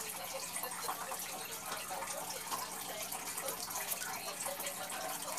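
Clear plastic squishy packaging being handled: irregular small crinkles and rustles over a steady hiss.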